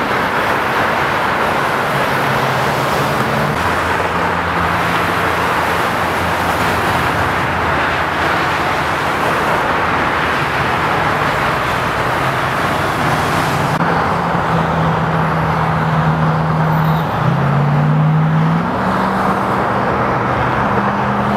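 Freeway traffic: a steady rush of tyres and engines from many vehicles, with the low hum of nearby engines. About three-quarters of the way through, one engine note steps up in pitch as a vehicle speeds up.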